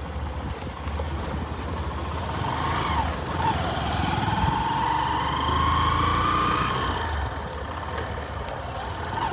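A car running along a road, heard from inside: a steady low engine and tyre rumble with a whine that rises slowly in pitch from a couple of seconds in and fades about seven seconds in.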